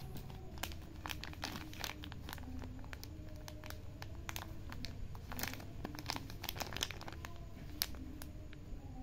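Clear plastic bag crinkling as it is handled and turned over, with a small burlap sachet of coffee beans inside, in irregular crackles that come thickest a little past the middle.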